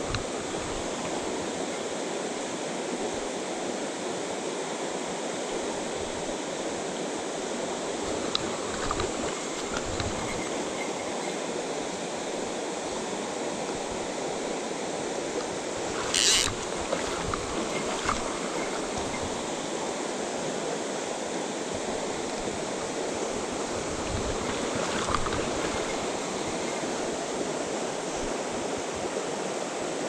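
A mountain stream rushing steadily over a rocky riffle, with one brief sharp knock about halfway through.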